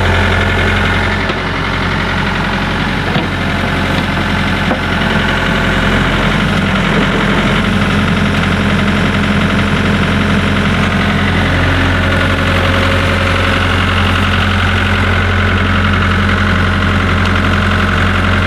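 Compact excavator's diesel engine running at a steady speed.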